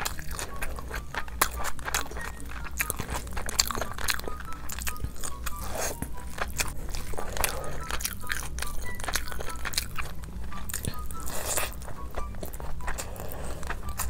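Close-miked eating: a person biting into and chewing crunchy food, with a dense run of sharp crunches and crackles.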